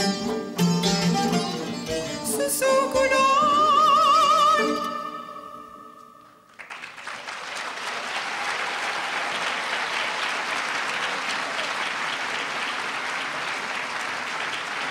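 Persian folk-style dance music with plucked strings ends on a long sung note with vibrato, fading out about five seconds in. Audience applause starts about six and a half seconds in and goes on steadily.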